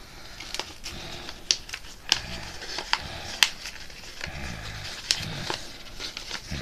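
Paper being folded and creased by hand: irregular sharp crinkles and crackles as the sheet is pressed and handled.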